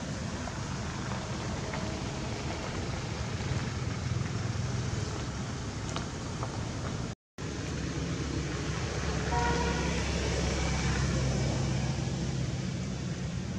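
Steady low rumble of distant road traffic. It drops out for a moment about halfway through, and a short pitched tone sounds a couple of seconds later.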